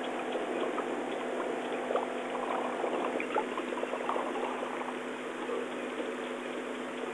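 A steady low engine hum, like an idling vehicle, under a crackling, trickling noise that sounds like running or splashing water.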